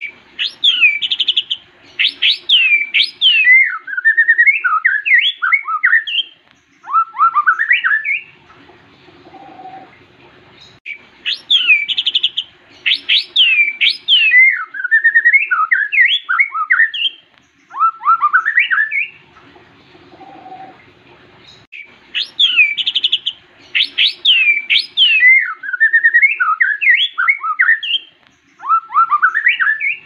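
White-rumped shama singing: a phrase of high, falling whistles runs into a quick warbling string of notes and ends in a few rising calls, about eight seconds long. The same phrase comes three times with short pauses between.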